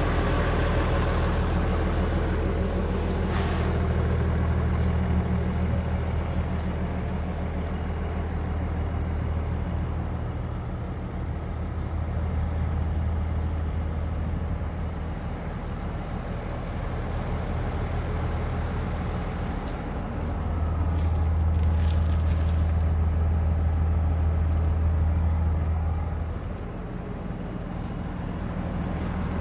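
Cummins ISL inline-six diesel engine of a Kenworth truck idling steadily with a low hum, swelling louder for several seconds near the end.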